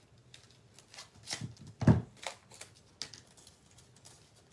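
Scissors snipping through heavy black card stock, with paper and card rustling as it is handled. There are a handful of short crisp snips and rustles, the sharpest about two seconds in.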